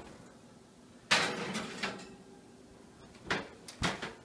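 A kitchen door being handled: a noisy opening or sliding sound about a second in, then two sharp knocks about half a second apart near the end.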